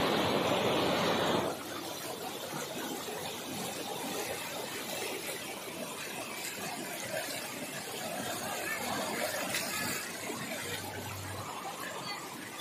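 Heavy rain and floodwater running over a road: a steady rushing noise, louder for about the first second and a half.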